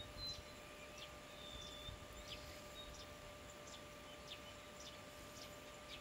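Birds chirping faintly: short, quick downward-sliding notes about twice a second, with a couple of brief level whistles, over a faint steady hum.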